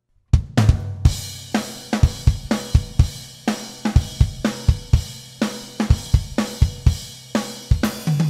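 Playback of a multitracked acoustic drum kit recording: kick, snare, hi-hat and cymbals playing a steady groove at 124 beats a minute, starting a moment in. The snare sounds thin, which the engineer calls "wimpy", the reason it is about to be doubled with a sample.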